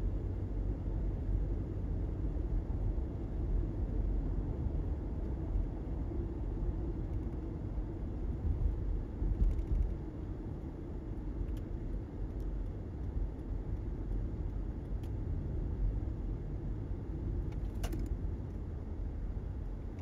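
Steady low rumble of road and engine noise heard from inside a moving car, with a few faint ticks and clicks, the clearest one near the end.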